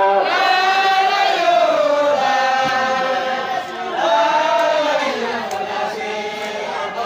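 Voices chanting a religious song in unison, holding long drawn-out notes that glide up and down, with a short break about three and a half seconds in.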